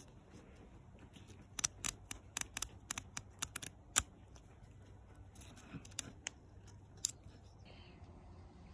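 Magazine pages riffled off the thumb along their freshly trimmed edge: a quick run of about a dozen sharp paper flicks over some two seconds, then a few scattered flicks.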